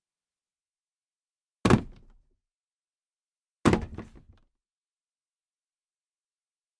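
Two heavy thuds about two seconds apart, each dying away within about half a second.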